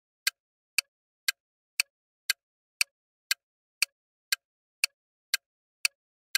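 Countdown timer sound effect ticking steadily, about two sharp ticks a second, with silence between the ticks.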